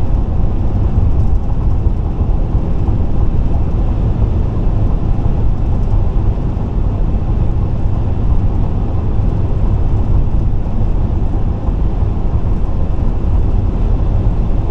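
Steady low rumble of road and tyre noise from a car driving at highway speed, heard from inside the moving car.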